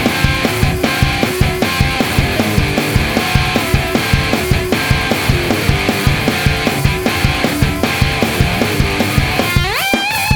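Loud rock music with guitar over a fast, steady drum beat. Near the end, a note glides sharply up in pitch and is held.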